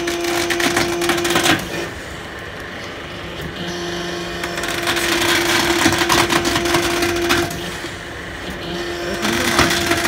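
Hydraulic tyre debeader at work: its pump whines steadily in stretches as the hook cylinder pulls, over dense crackling and creaking from the truck tyre as the steel bead wire is dragged out of the rubber. Twice the whine drops away, leaving quieter spells.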